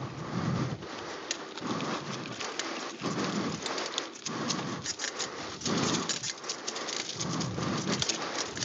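Mountain bike rolling fast downhill on a dirt trail: the tyres crunch over dirt and gravel, the bike rattles in many sharp clicks, and wind buffets the microphone in low swells about once a second.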